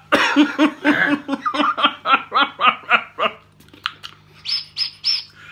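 A man laughing hard in a fast run of "ha" pulses that fades out after about three seconds. Three short high squeaks follow near the end.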